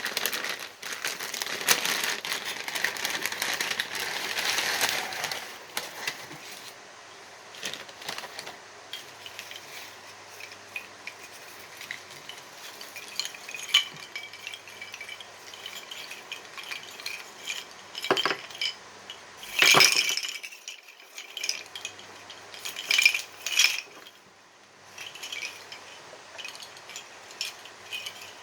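Pieces of a tangled wind chime clinking and briefly ringing against each other as it is unwrapped and handled, with paper crinkling during the first few seconds.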